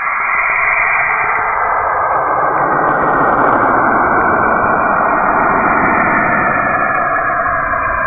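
Saturn's radio emissions, picked up from the planet's magnetic field and converted into audible sound: a steady, dense hiss with faint held tones under it. A brief, brighter hiss comes about three seconds in.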